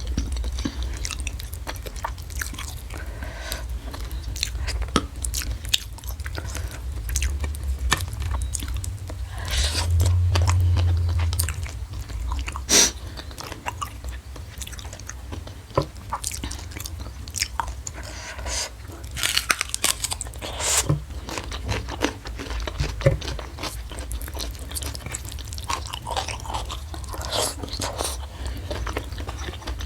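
Close-miked chewing and biting of food, with irregular crisp crunches, clicks and mouth sounds. About ten seconds in, a louder low rumble lasts for a second or so.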